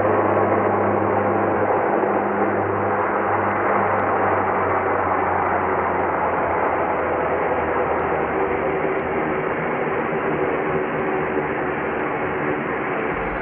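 Steady drone of a small turboprop airliner's engines and propellers heard inside the cockpit, easing slightly as the plane rolls along the runway after landing.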